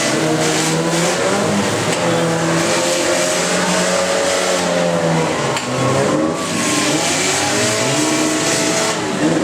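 Several demolition derby cars' engines revving hard at once, their pitches rising and falling against each other, over tyre and crowd noise, with a sharp knock about halfway through.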